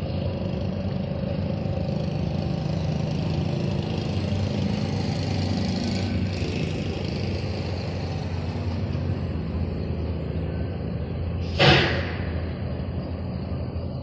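Steady rumble of road traffic, with one short, loud hiss near the end.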